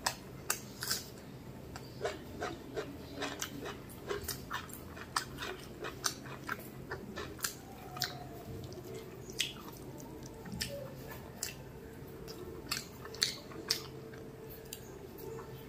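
Close-miked chewing of mutton biryani eaten by hand: many short, wet mouth clicks and smacks at an irregular pace of two or three a second.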